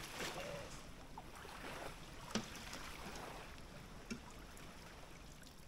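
Faint wash of water and wind, broken by three light knocks, the sharpest about two and a half seconds in.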